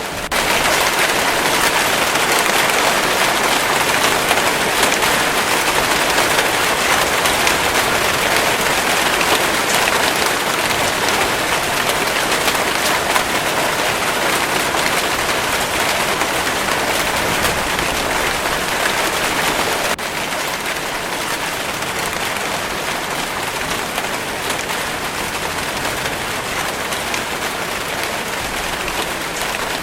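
Steady rainfall, a dense even hiss of falling drops. It swells just after it begins and drops a little in level about two-thirds of the way through.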